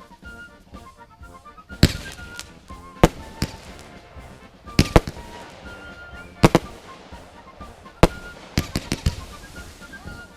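Fireworks going off in a string of sharp, irregular bangs, some in quick pairs, about ten in all.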